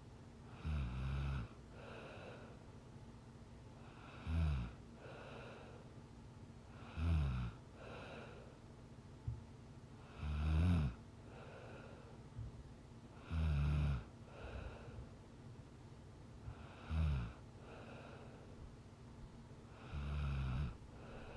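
A young woman snoring in her sleep: seven low snores, about one every three to three and a half seconds, each followed by a softer breath. A faint steady hum runs underneath.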